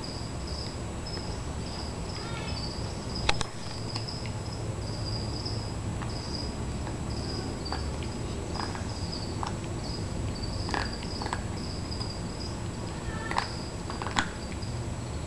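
Scattered light clicks and taps from a miniature pinscher and a miniature schnauzer moving and chewing at a toy, the sharpest about three seconds in and a few more near the end, over a steady hiss with a faint, repeating high chirp.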